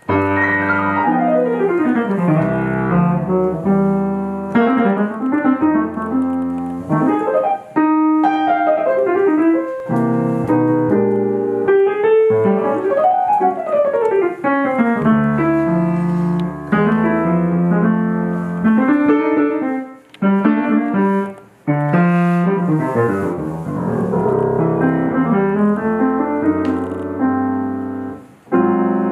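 Solo acoustic piano playing an unaccompanied introduction, with fast runs sweeping up and down the keyboard over chords and a few short breaks.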